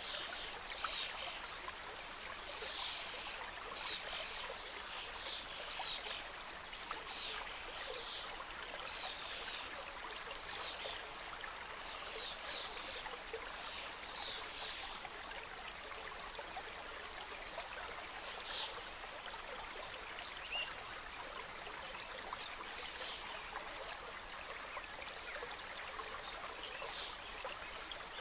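Mountain stream flowing steadily, a continuous rush of water with many short high-pitched plinks on top, thicker in the first half and sparser after about fifteen seconds.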